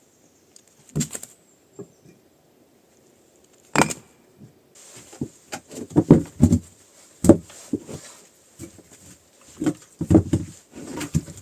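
Irregular knocks and thumps: two single knocks a few seconds apart, then a quick, uneven run of them through the second half.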